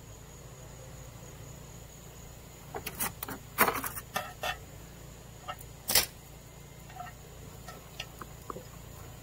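Sharp clicks and knocks of hands working a perforated metal gutter guard at the lip of an aluminium gutter: a quick cluster about three to four and a half seconds in, one loud knock about six seconds in, then a few faint ticks.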